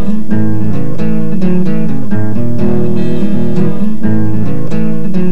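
Background music: acoustic guitar picking and strumming in a steady rhythm.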